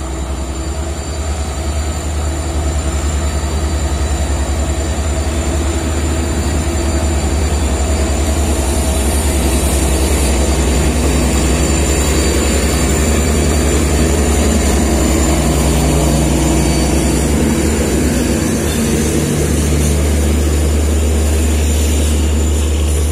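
Heavy railway diesel engine running steadily close by: a loud, deep, even drone that swells over the first few seconds and then holds.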